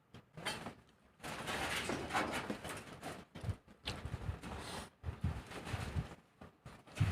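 Close-miked eating sounds: a few seconds of wet, noisy mouth sounds, then a series of short soft chewing thuds.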